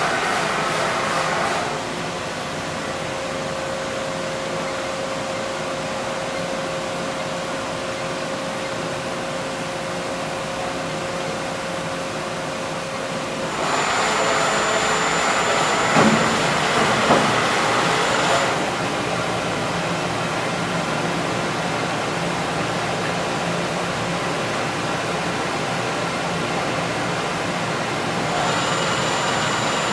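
Cincinnati CNC machining center running, a steady mechanical hum with a steady whine. About halfway it gets louder for several seconds, with a high whine and two or three sharp clunks, then settles back to a steady run.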